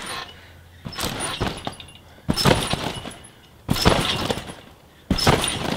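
Trampoline bouncing: four landings on the mat about a second and a half apart, each a sudden hit from the mat and springs that rings on for about a second.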